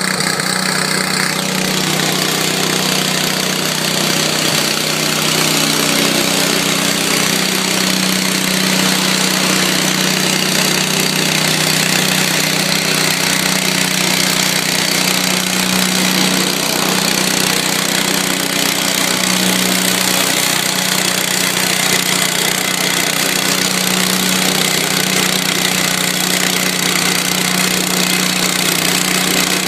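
Garden tractor engine running hard at a steady, high speed under load as it pulls a weight-transfer sled.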